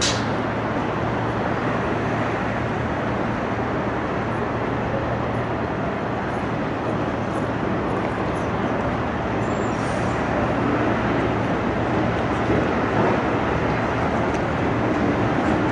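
Steady road traffic noise on a busy city street: a continuous rumble and hiss of passing cars and buses, with a brief click right at the start.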